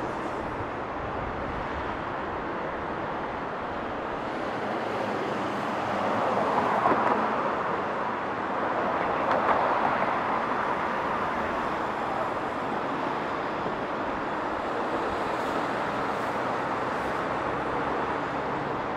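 City street traffic noise, steady throughout, swelling louder twice, about a third of the way in and again near the middle.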